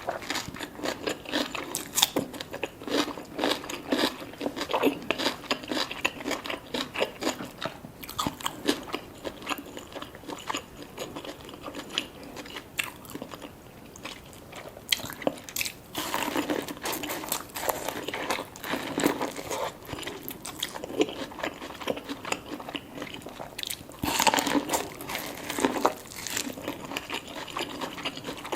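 A person biting and chewing seafood-boil food (lobster tail and sweet corn): a continuous run of quick, wet chewing clicks, busier for a couple of seconds about halfway through and again near the end.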